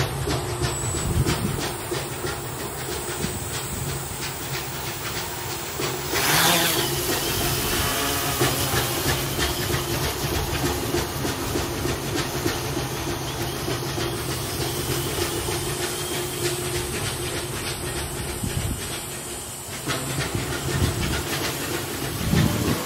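Quadcopter's four Sunnysky 980 kV brushless motors and propellers running with a steady hum. About six seconds in there is a loud rush of prop wash as it lifts off, and the steady flying drone follows. Construction work clatters in the background.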